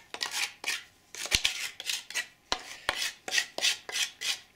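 A spatula scraping wet plaster out of a flexible plaster-mixing bowl as the plaster is poured into the mould, in a quick run of short scrapes, about three a second.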